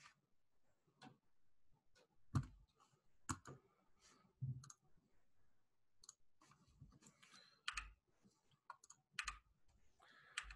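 Faint, irregular clicking of a computer mouse and keyboard, about a dozen separate clicks.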